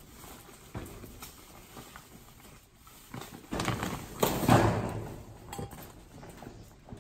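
Large clear plastic bag rustling and crinkling as it is handled and rummaged through, with a louder burst of crinkling a little past the middle.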